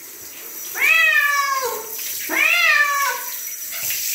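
Cat meowing twice while being bathed, each meow rising then falling in pitch, with water running in the background.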